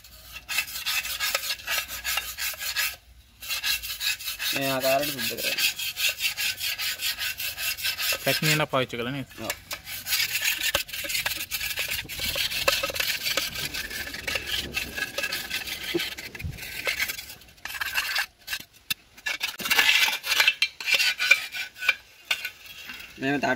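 A screwdriver blade scraping built-up carbon from inside the steel silencer (muffler) pipe of a two-stroke three-wheeler, in quick repeated strokes with a couple of short pauses.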